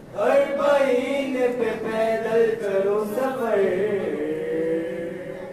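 A man's voice chanting a noha, a Shia mourning lament, in long melodic phrases that slide up and down in pitch and trail off near the end.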